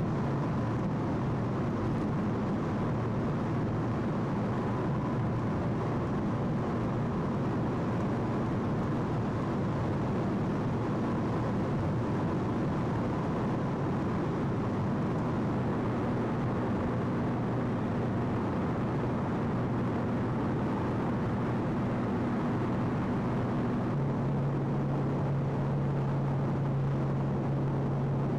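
Steady road and engine noise inside a vehicle cruising at motorway speed: tyre and wind rush over a low engine drone, the drone growing a little stronger near the end.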